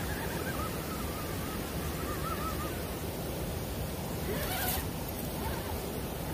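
Steady rush of flowing water, with a faint wavering whine in the first few seconds and a brief hiss about four and a half seconds in.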